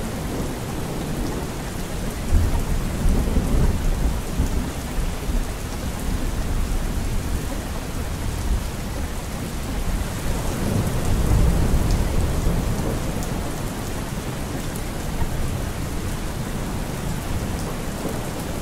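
Steady rain with rolling thunder. The thunder swells into a low rumble about two seconds in and again around eleven seconds.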